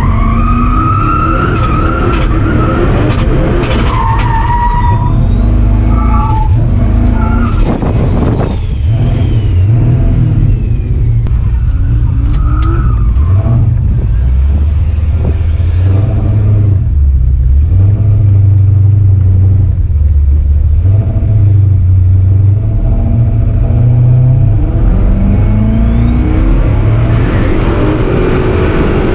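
Turbocharged V8 Dodge pickup drifting: the engine runs hard at high revs with the pitch rising and falling, while the tyres squeal in high wavering tones as they slide. The squealing is strongest at the start and climbs again near the end.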